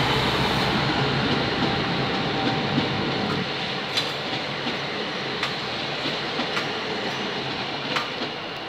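Trenitalia regional electric multiple unit passing and pulling away: a dense rumble of wheels on rail that eases off about three and a half seconds in and then fades, with a few sharp clicks from the wheels on the track.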